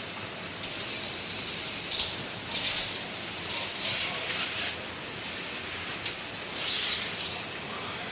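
Mail bags being handled: several bursts of rustling, with a few sharp clicks, over a steady background hiss.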